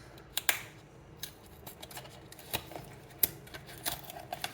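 A small blind box being opened by hand: scattered sharp clicks and short scratchy rustles of cardboard and plastic packaging being cut or torn open.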